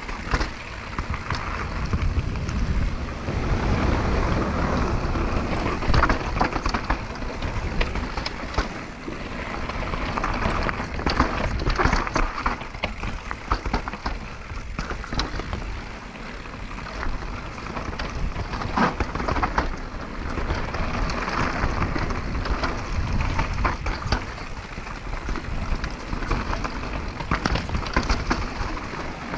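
Downhill mountain bike ridden fast down a rocky gravel trail: tyres crunching and rolling over loose stones and dirt, with the bike rattling and knocking over rocks and roots, and wind rumbling on the helmet- or bike-mounted camera's microphone.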